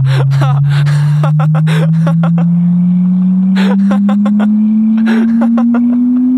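A loud, steady drone tone slowly rising in pitch, a film sound-design effect, with short broken bursts of voice over it.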